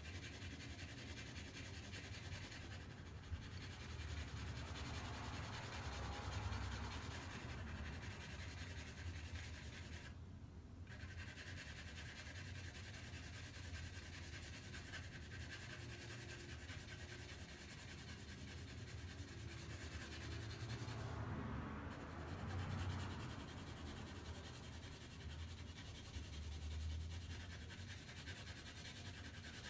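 A 2B graphite pencil shading on drawing paper: the lead rubs back and forth across the paper in continuous short strokes, faintly, swelling a little louder now and then.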